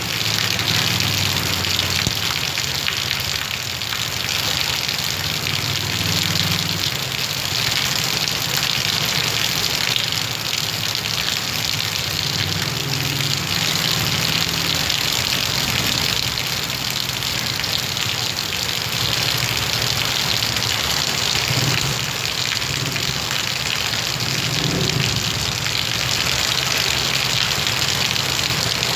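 Heavy rain pouring down in a steady hiss, with the low hum of vehicle engines passing now and then.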